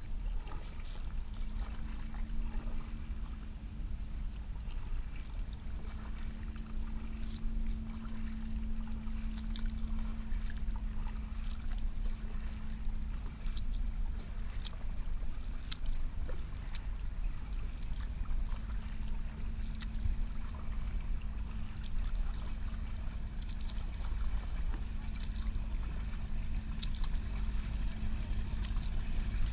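Kayak paddling on open water: light splashes and drips from the paddle blades come as small scattered ticks over a steady low rumble. A steady hum from a distant motorboat runs underneath and is strongest in the first third.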